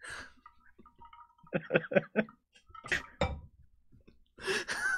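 Men laughing quietly: a short run of chuckles about one and a half seconds in, then more breathy laughter near the end.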